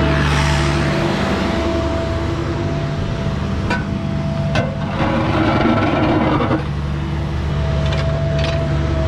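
Diesel excavator running steadily with a whining hydraulic tone, with a few sharp clanks and a stretch of rougher scraping noise in the middle as it works.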